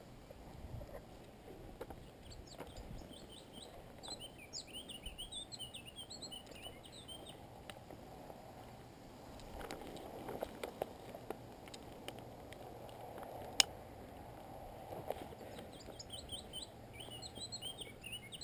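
Small birds singing in rapid, high chirping phrases, twice, with rustling of grass and gear in between and one sharp click a little after the middle.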